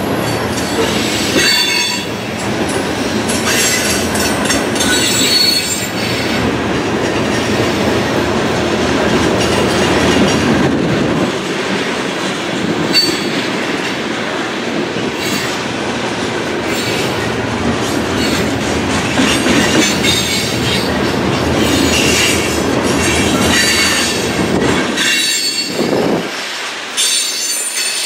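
A freight train of covered hopper cars rolling past, a steady rumble of wheels on rail. High-pitched wheel squeal comes and goes, strongest near the start and again about three-quarters of the way through.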